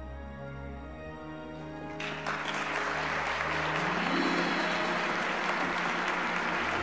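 Film score music with sustained chords; about two seconds in an audience breaks into applause, which goes on over the music.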